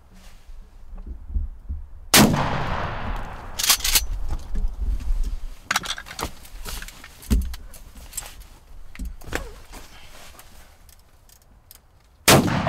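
Two shotgun shots about ten seconds apart, one about two seconds in and one near the end, each with a long echoing tail; the second is a follow-up shot to finish a gobbler hit high with the first. Several sharp knocks sound in between.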